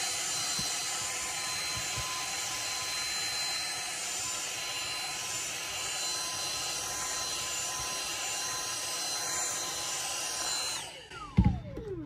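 Dyson cordless stick vacuum running steadily with a high motor whine as its brush tool works over a dusty air-conditioner filter. It is switched off near the end, and the motor winds down with a falling whine.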